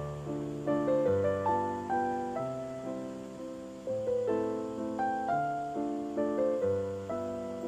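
Background piano music: a gentle melody of single notes over low chords, each chord struck and then fading, about every second and a half.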